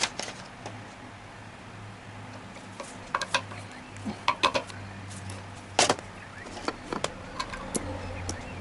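Irregular light metallic clicks and knocks from tools and machine parts being handled, over a faint low hum.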